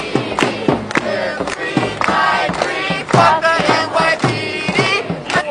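Protest crowd chanting in unison, with sharp hand claps keeping time about twice a second.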